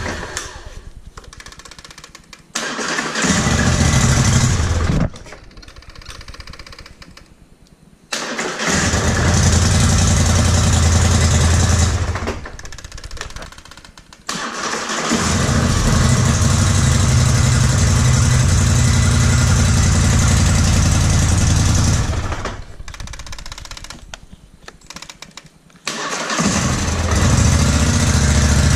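Polaris Scrambler 850 ATV's parallel-twin engine being started on a weak, jump-started battery. It goes in four loud spells of several seconds with short pauses between, the longest about eight seconds.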